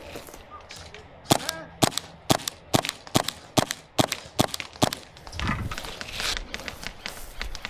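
Airsoft pistol firing a steady string of about nine shots, roughly two a second, each a sharp crack. After that comes a low rustle of movement, with a few fainter clicks near the end.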